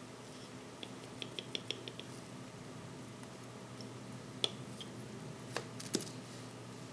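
Small clicks and taps of watchmaker's tools on the parts of a quartz chronograph movement during reassembly: a quick run of about six light ticks, then a few sharper single clicks later on.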